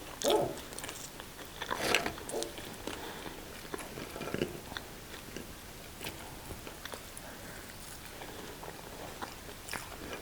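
Close-up eating sounds: biting and chewing a meal of fries, sausage and salad, with many small scattered clicks and a few louder bites near the start and around four seconds in.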